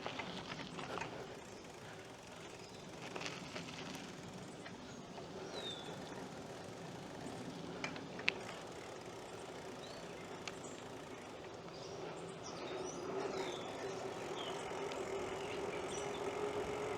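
BMX bicycle being ridden, with a steady rolling noise from the tyres and drivetrain and one sharp click about eight seconds in. A few birds chirp, and a faint steady engine hum grows near the end.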